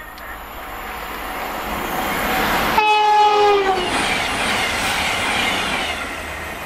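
Avanti West Coast passenger train passing at speed. Its rush builds, then about three seconds in it sounds its horn, one note for about a second that drops in pitch as the train goes by, and the noise of the train fades away.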